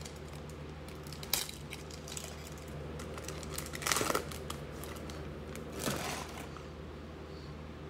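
Foil wrapper of a Panini Chronicles basketball card pack crinkling and tearing as it is opened by hand, with three short, sharp crackles, the loudest about halfway through. A steady low hum runs underneath.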